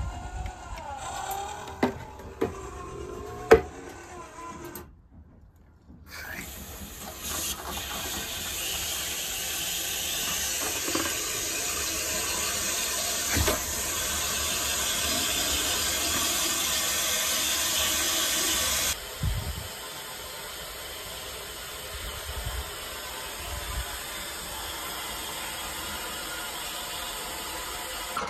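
A few sharp clicks, the loudest about three and a half seconds in, then a steady hiss of water rushing through an iron filter's control valve and venturi injector in brine draw mode, sucking Iron Out cleaning solution into the filter. The hiss grows a little louder, then drops to a quieter steady level about two-thirds of the way through.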